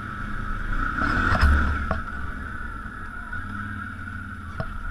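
ATV engine running on a trail, a steady drone with a constant whine, swelling briefly about a second in and then easing, with a few light knocks.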